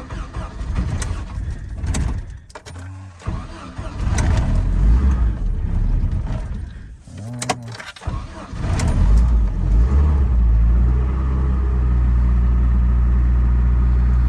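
Delivery truck's engine running while warming up, with several sharp knocks and clatter over the first eight seconds or so; from about ten seconds in the engine settles into a steady low drone.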